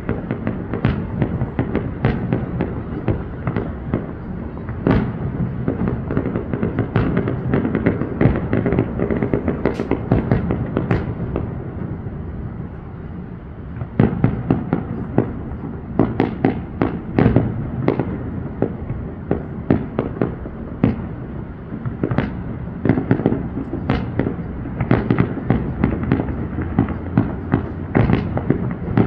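Fireworks display: shells exploding in quick succession, a run of sharp bangs over a low rumble. The bangs ease off briefly about halfway through, then come thick and fast again.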